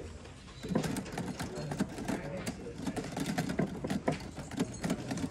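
Indistinct voices in the background, starting about a second in, mixed with light clicks and knocks.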